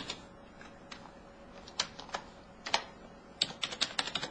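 Keystrokes on a computer keyboard as an email address is typed: a few scattered taps at first, then a quick run of keys near the end.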